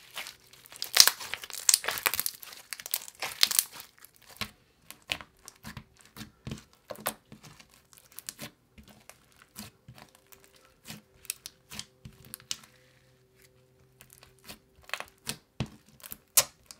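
Clear slime with fishbowl beads being stretched and squished by hand. Dense crackling for the first few seconds, then scattered pops and clicks as fingers press and poke it.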